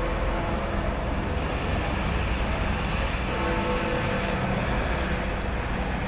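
Big Ben, the Great Bell of the Westminster clock tower, striking the hour at twelve: one stroke rings out about three seconds in and hangs on, while the previous stroke is still dying away at the start. Steady city traffic noise runs underneath.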